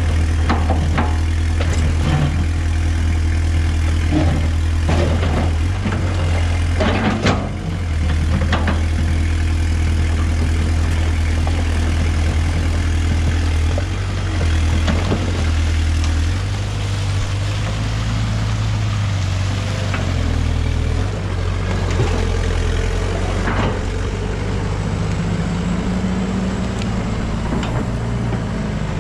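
Case Poclain tracked excavator's diesel engine running steadily, with its note shifting about halfway through. The bucket knocks against bricks and rubble as it digs out the brickwork of an old bridge, with several sharp knocks in the first eight seconds or so and a few more later.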